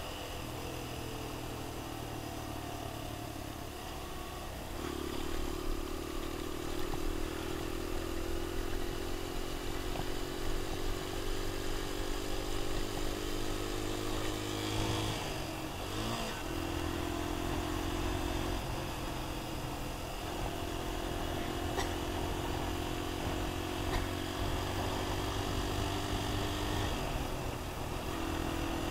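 Enduro motorcycle engine running under way, its note climbing slowly through long stretches and breaking off briefly a few times.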